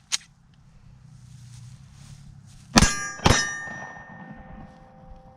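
Two Glock pistol shots fired about half a second apart from the low ready, followed by a ringing metallic tone that fades away slowly.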